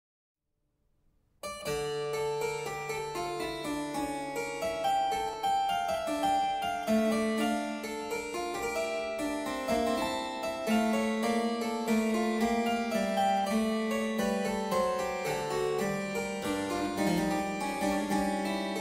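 Instrumental background music that starts about a second and a half in: a busy run of quick, crisply struck notes over a lower held line.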